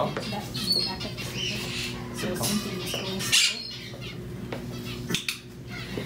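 Parrots giving a few short, high squawks and chirps, with a couple of sharp clicks and low murmured talk underneath.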